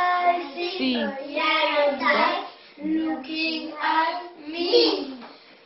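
Young children singing a song together, in short phrases.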